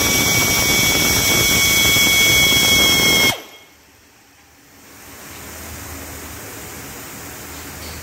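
Pneumatic air drill running at speed: a steady high whine over rushing air that cuts off abruptly about three seconds in. A fainter steady hum rises a second or two later.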